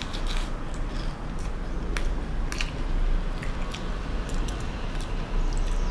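A person biting into and chewing a fried pie with a crispy crust, giving scattered small crunches and clicks. A steady low hum runs underneath.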